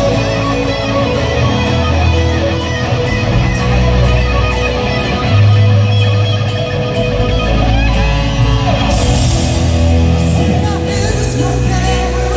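Loud live rock music from an arena concert sound system, led by amplified electric guitar over sustained low notes.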